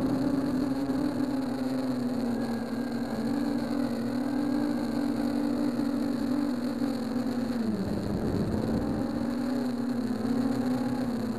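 Onboard sound of a mini quadcopter's four 1804 2400 kV brushless motors and 6x4.5 propellers in flight: a steady buzzing whir with a hiss, whose pitch drops briefly about eight seconds in, then rises again.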